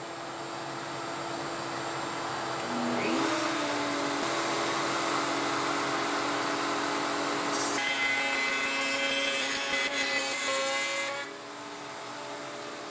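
Bosch 1617EVSPK router running in a Bosch router table with dust extraction hooked up, a steady machine hum that grows louder with a rising sweep about three seconds in. From about eight to eleven seconds in the bit cuts through a piece of wood, a harsher, denser sound, then the router runs free again.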